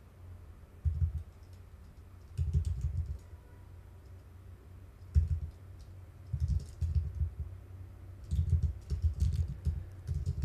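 Typing on a computer keyboard in several short bursts with pauses between, each keystroke a click with a dull thump.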